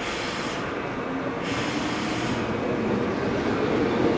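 Korail electric commuter train pulling into a subway station platform. Its running noise grows steadily louder as it draws close and the cars pass by, with two short spells of high hiss in the first half.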